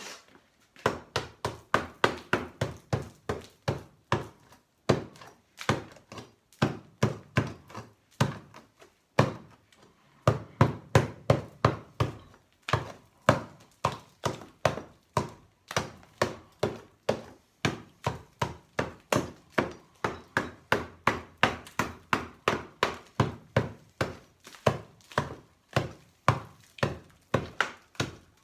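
Hammer blows chipping the concrete fill out of the wall of an antique York safe: a steady run of sharp knocks, about two to three a second, with a brief break about ten seconds in.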